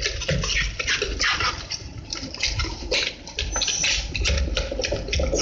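Wire balloon whisk beating a wet gram-flour batter in a bowl: rapid, irregular scraping and slapping strokes against the bowl.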